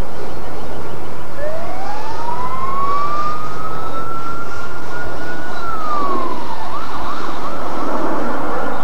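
A siren wailing: its pitch climbs slowly for about four seconds, drops back, then wavers up and down more quickly near the end.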